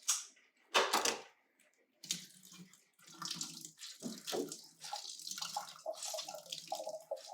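A couple of sharp clicks from the crab meat can being opened, then from about two seconds in liquid trickling and splashing as the canned crab meat is drained through a strainer.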